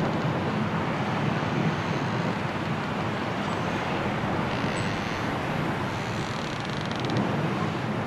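Strong, steady wind of a snowstorm blowing through the treetops.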